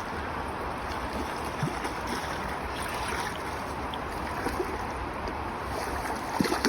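Steady rush of flowing river water, with a couple of short sharp sounds near the end.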